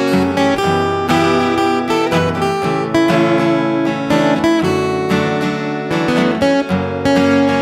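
Acoustic guitar strummed in a steady rhythm, playing a song live.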